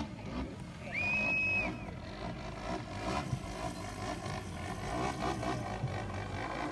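Radio-controlled model airplane's motor running steadily in flight, with a short high beep about a second in.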